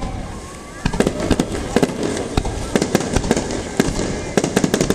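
Aerial fireworks shells bursting in quick succession: a rapid string of sharp bangs and crackles that starts about a second in.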